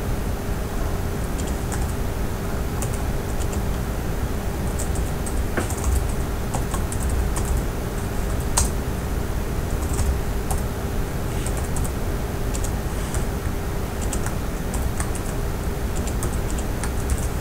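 Typing on a computer keyboard: irregular runs of key clicks over a steady background hum.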